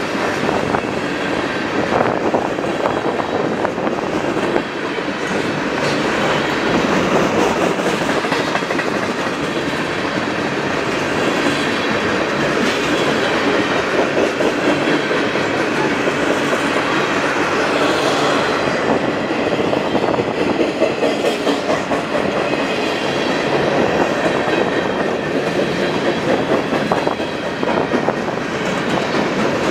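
A train rolling past close by, its cars' steel wheels clattering steadily over the rails the whole time.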